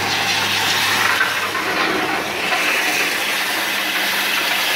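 Homemade dowel belt sander, run by a half-horsepower electric motor through V-belt pulleys, sanding a wooden broom handle fed through its rollers: a steady hiss of the abrasive belt on the wood over the machine's running.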